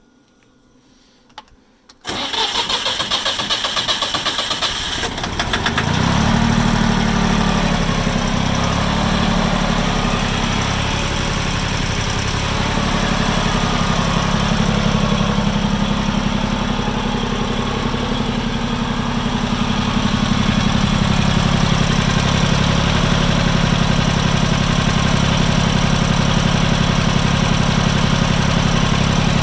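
Farm Pro 2425 tractor's diesel engine being started from cold. About two seconds in the starter cranks it, it catches a few seconds later, and it settles into a steady idle. It runs without the knock that the owner finds develops 5–10 minutes after a cold start.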